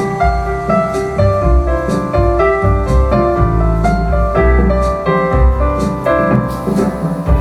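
Piano-led music with a heavy, pulsing bass line, played back through Yamaha NX-VS10M two-way surround speakers and a Sony SA-WMSP4 active subwoofer for a sound test.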